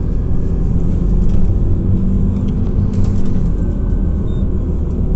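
Scania Citywide 12LF CNG city bus driving, heard from inside the passenger cabin: a steady low rumble from the running gas engine and the moving bus.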